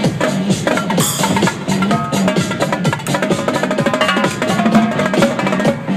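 Electronic dance track with live drum-corps-style percussion played over it: quick, sharp drum strokes on top of a steady beat and synth lines.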